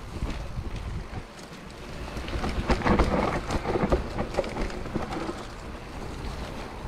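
Mountain bike ridden along a dirt trail: wind buffeting the microphone over the rumble of the tyres, with scattered rattles and knocks from the bike, loudest about three seconds in.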